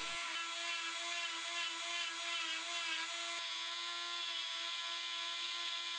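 Flexible-shaft rotary carving tool running at a steady high-pitched whine as its burr carves walnut. The pitch holds constant, with a slight change in tone about three and a half seconds in.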